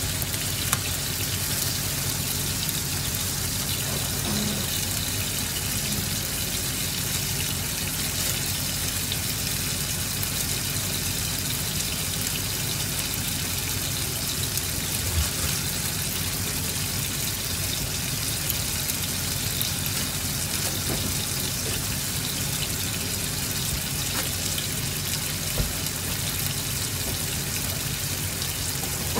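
Pork and chicken frying in a pan: a steady sizzle with scattered small crackles and an occasional louder pop.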